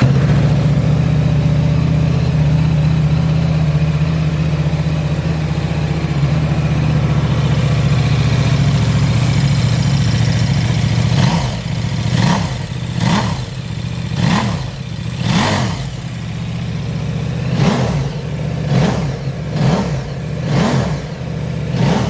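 KTM RC8 1190's V-twin engine on a cold start: it catches right away and holds a steady idle. From about halfway through, the throttle is blipped over and over, a short rev up and back down roughly once a second.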